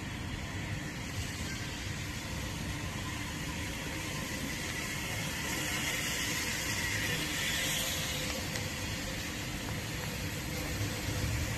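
Steam locomotive at the platform, a steady hiss of steam over a low rumble, swelling for a couple of seconds about six seconds in.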